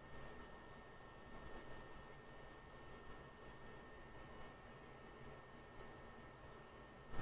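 Faint, rapid scratching strokes, about four to five a second, that stop about six seconds in, over a low steady hiss.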